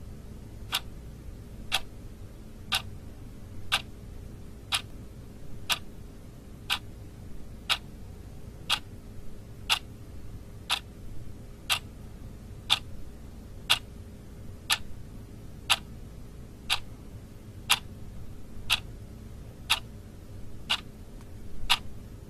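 A clock ticking steadily, about one tick a second, over a faint steady hum.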